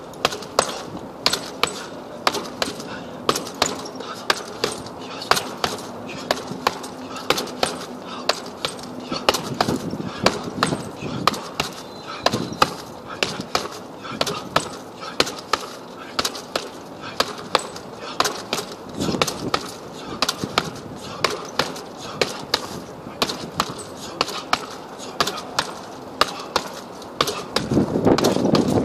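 Gloved punches landing on a hanging heavy punching bag in quick, irregular strings, a few hits every second. Near the end a louder rushing noise comes in under the punches.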